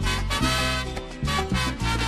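Salsa romántica music in an instrumental passage between sung lines, with a moving bass line and steady percussion strokes.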